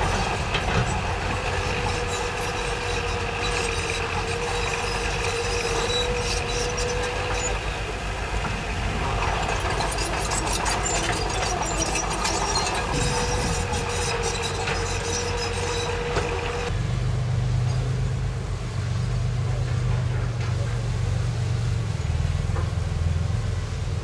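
Heavy earthmoving machinery's diesel engine running, with rattling metallic clanks and a steady whine that comes twice. About two-thirds of the way in the sound changes abruptly to a lower, steadier engine drone without the clanking.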